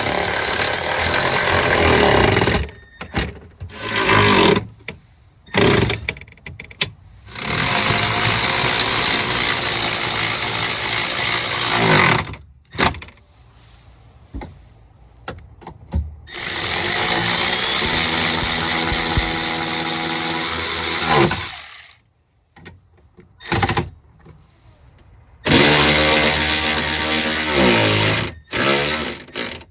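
Handheld electric power tool running in several long bursts of a few seconds each, with short blips between, its motor winding down in pitch as each long run stops; the kind of run used to drive in the bolts holding a new window regulator in a door.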